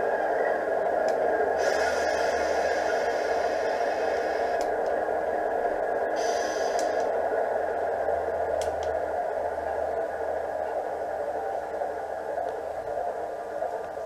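O gauge model diesel locomotive's DCC sound decoder playing a steady idling diesel engine through its small onboard speaker. Two spells of hiss come through, one about two seconds in and a brighter one about six seconds in. It gets slightly quieter near the end.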